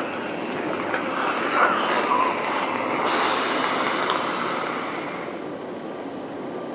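A person exhaling a long breath of e-cigarette vapour, a steady airy rush with a brighter hiss from about three seconds in that stops near five and a half seconds.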